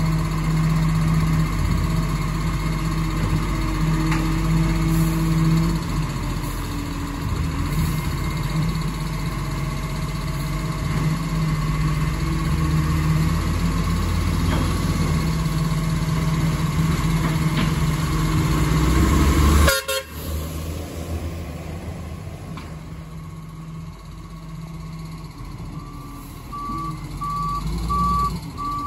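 Garbage truck's diesel engine running steadily, dropping suddenly in level about two-thirds of the way through. Near the end the truck's reversing alarm starts, a string of evenly spaced beeps.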